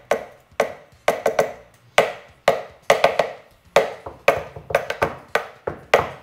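Sharp knocks on hard kitchen surfaces, about two a second and often in quick pairs or triples, each followed by a short ring.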